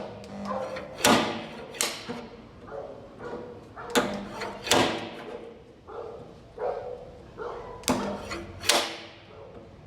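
Hammer blows on a steel car-body panel: a series of sharp metallic strikes, mostly in pairs a little under a second apart, each with a short ring, with lighter taps between them.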